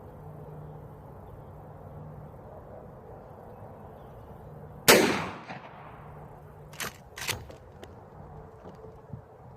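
A single 12-gauge shotgun shot from a Mossberg 500 firing a sabot slug: one loud blast with a tail that echoes for nearly a second. About two seconds later there are two sharp clacks half a second apart, the pump action being worked back and forward to chamber the next slug.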